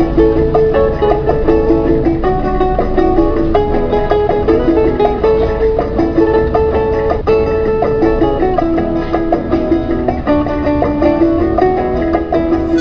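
Instrumental background music led by plucked strings, a lively picked melody moving through steady notes.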